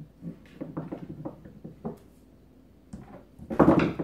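Screwdriver being pawed and knocked about on a stone countertop by a kitten: a quick run of small taps and knocks, then a louder, longer scraping clatter near the end.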